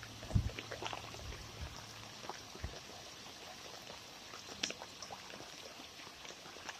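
Floodwater running across a road, a steady rush with scattered small splashes. A faint low hum stops about two seconds in.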